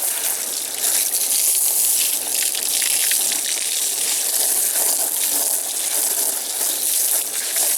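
Water spraying steadily from a hose onto a chair, rinsing off cleaner: a continuous, loud hissing gush.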